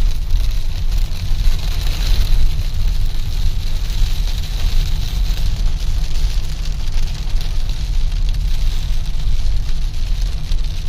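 Car driving in heavy rain: a steady low rumble of road and engine under an even hiss of rain and tyre spray.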